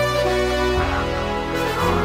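Instrumental music: sustained chords over a bass line that moves to a new note about three-quarters of a second in and again near the end.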